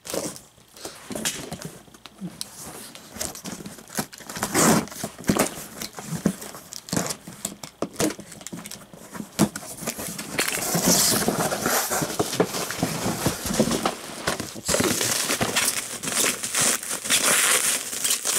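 Cardboard shipping box being opened by hand: flaps and contents scraping and knocking, then from about halfway through a steadier crinkling of plastic bubble wrap as a wrapped package is pulled out and handled.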